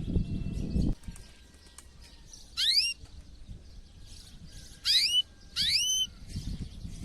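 Male domestic canary calling: three loud, short whistled notes that each sweep upward in pitch, the first about two and a half seconds in and the other two close together near the end, with a low rumbling noise in the first second.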